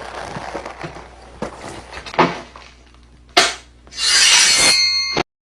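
Foley sound effects made by hand with props: scratchy rubbing and scraping, a sharp hit about two seconds in and another just after three seconds, then a loud rushing burst with a ringing edge from about four seconds in that cuts off suddenly.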